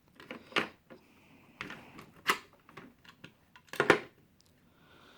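Impact sockets clicking and clacking as they are pulled off and pushed back onto a socket holder: a run of sharp, uneven knocks, the loudest a little before the end.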